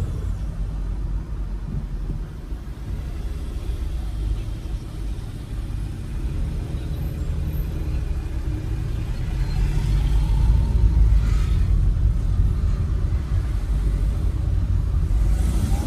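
Bus on the move, heard from on board: a steady low engine and road rumble that grows a little louder about ten seconds in.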